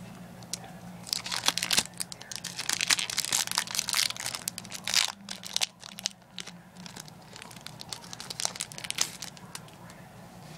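Foil Pokémon trading-card booster pack being crinkled and torn open by hand: a dense run of crackling for a few seconds, a brief pause, then lighter crinkling.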